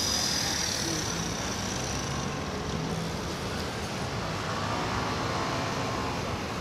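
Steady outdoor background noise: a wash of distant road traffic and engines, with no single clear event.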